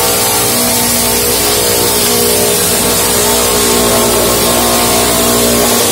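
LogRipper-200 scragg mill running under load, sawing a chestnut cedar log into half-inch boards as its spiked feed roller drives the log through. A steady, loud machine noise with a constant hum from the motors and saws.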